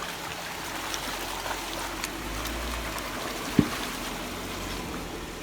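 Steady trickling, running water, with one short knock about three and a half seconds in.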